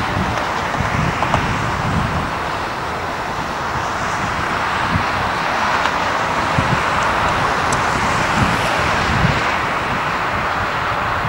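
Jet engine noise of a Boeing 747-400F freighter on final approach: a steady rushing that swells a little over the second half as the aircraft nears. Wind gusts buffet the microphone.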